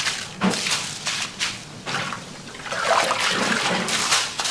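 Water splashing and pouring as soaked rice is rinsed in plastic bowls and drained, coming in irregular surges with a few sharper splashes.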